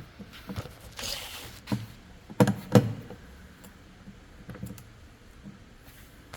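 Scattered knocks and clicks of trimmer parts and tools being handled during reassembly, with a short scraping rustle about a second in. The loudest are two knocks in quick succession about two and a half seconds in.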